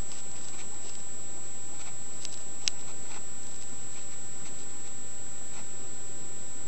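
Steady background hiss with a constant high-pitched whine, broken by scattered faint light clicks, one sharper click a little before the middle.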